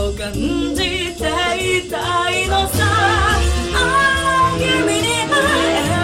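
Live electropop song: female voices singing held, wavering notes over a dance track with a steady beat.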